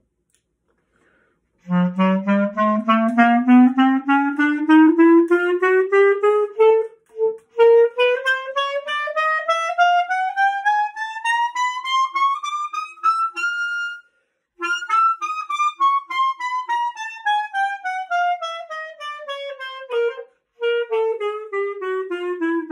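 Clarinet playing a chromatic scale from concert F, note by note, rising about three octaves and then coming back down, with short breaths between phrases.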